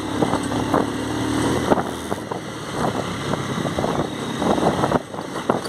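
Motorcycle engine running at low speed on a rough, stony dirt road, with repeated knocks and rattles as the bike jolts over the stones. A steady engine hum is clearest in the first couple of seconds.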